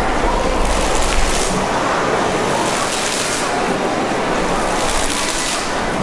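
Fountain water falling and splashing steadily onto a wet basin floor, a constant rushing hiss that brightens now and then.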